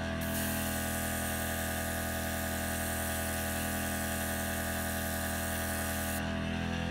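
Airbrush spraying thinned acrylic paint, a steady hiss of air that stops about six seconds in, over a constant steady motor hum.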